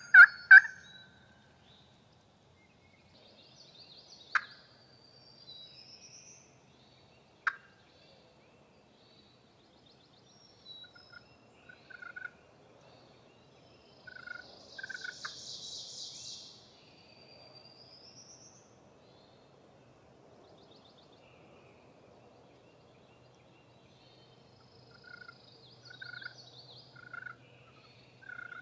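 The last notes of a loud run of turkey hen yelps on a hunter's call, ending about half a second in, then quiet woods. Faint short turkey-like calls come back at the same pitch a few times, mostly near the end. Two sharp clicks, about 4 and 7 seconds in, and faint songbird chirps.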